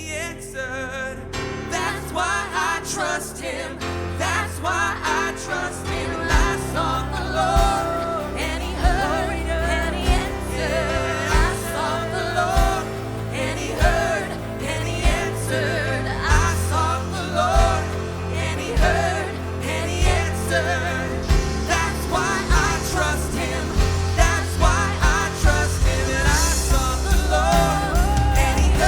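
Live church worship band with synth, drums, bass guitar, electric guitar and piano playing a gospel song while vocalists sing the melody. The drums come in more strongly after a few seconds and the band grows louder.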